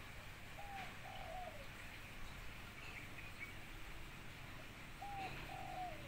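Spotted dove (tekukur) cooing: two phrases of two soft low coos, about half a second in and again about five seconds in, the second coo of each phrase drawn out and dropping at the end. A few faint high chirps from a small bird about three seconds in.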